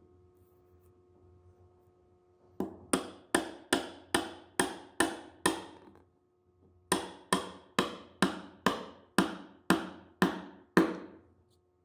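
Hammer tapping a white oak door frame in two steady runs, about eight taps, a short pause, then about nine more, each a sharp knock with a brief ring. The taps drive a mitred corner joint closed.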